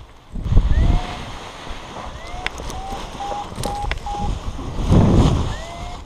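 Wind buffeting the helmet camera's microphone during a paraglider launch, in heavy gusts about half a second in and again around five seconds in.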